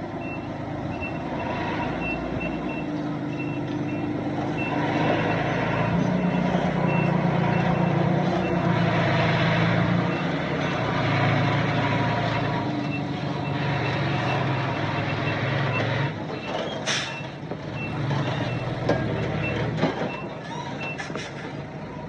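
Reversing alarm on heavy earthmoving equipment beeping steadily, about two to three beeps a second, over a loud diesel engine. A short hiss comes about three-quarters of the way in, and a few knocks near the end.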